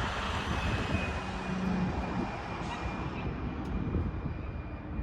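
Motor vehicle noise: a steady rush of engine and road noise with a faint steady whine, its hiss dying away over the last two seconds.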